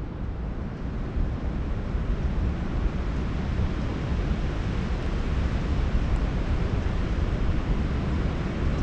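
Wind buffeting the microphone, a steady low rush that swells and eases, over the wash of ocean surf.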